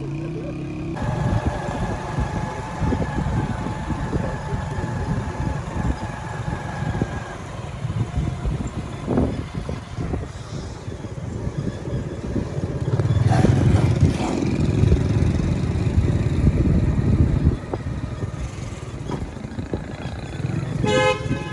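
Motorcycle engine running while riding along a dirt lane, a steady rumble mixed with road and wind noise. It gets louder for a few seconds about halfway through.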